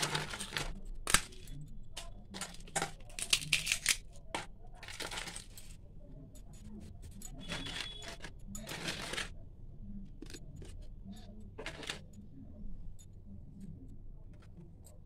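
Crisp fried potato papads crackling and rustling as a hand picks them up and shuffles them on a steel plate, with sharp clicks against the plate. The crackling comes in several bursts over the first nine seconds and once more near twelve seconds. The crackle is the sign that the papads are fried crisp.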